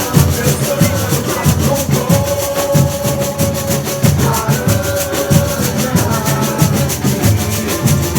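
Samba school drum section (bateria) playing a steady samba rhythm: deep surdo drum beats under a fast, even pulse of shakers, with a held tone above.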